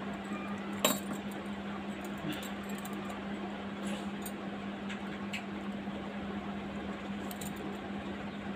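Bangles clinking against one another as they are worked onto a wrist: a few scattered sharp clinks, the loudest about a second in, over a steady low hum.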